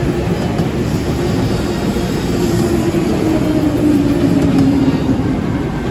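Continuous loud mechanical rumble and rattle of an amusement-ride vehicle in motion, with a droning tone through the middle few seconds.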